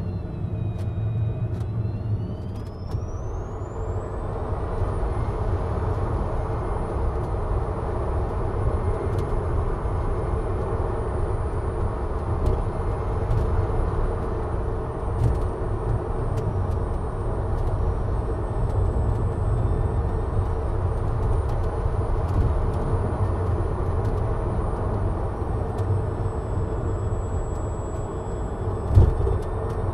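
Tesla Model 3 Performance driving: a steady rumble of tyres on the road, with a thin high electric-motor whine. The whine dips low coming out of a hairpin bend, climbs over the next few seconds as the car speeds up, then holds steady with small wavers. A single thump comes near the end.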